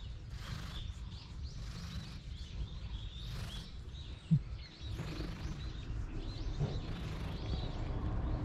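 Small birds chirping again and again over a low steady rumble, with one brief thump about four seconds in.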